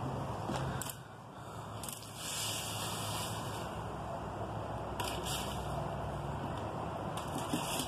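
A fan-shaped leaf rake dragged across patio tiles, scraping and rustling through a pile of dry leaves in repeated strokes, the louder pulls about two to three seconds apart.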